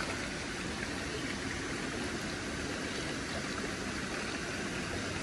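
Shallow rocky stream running over stones in a riffle: a steady rush of water.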